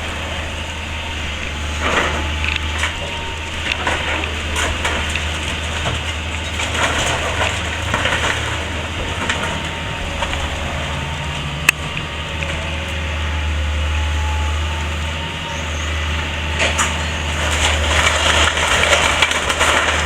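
Timber cracking, splintering and crunching as a house's walls are torn down and crushed, over the steady drone of an excavator's diesel engine, with a sharp snap about twelve seconds in.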